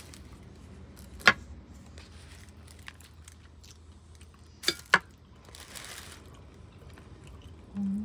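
Metal fork and knife clicking against the dish while cheese bread is cut apart: one loud sharp click about a second in, two more close together near the middle, then a brief rustle of paper or plastic wrap.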